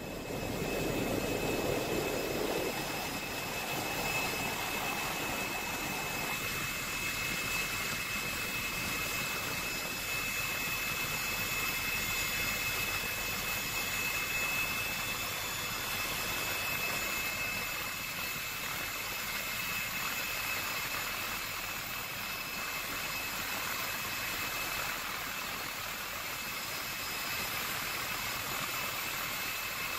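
Helicopter flying, heard from aboard: a steady rush of engine and rotor noise with a thin, steady high-pitched turbine whine.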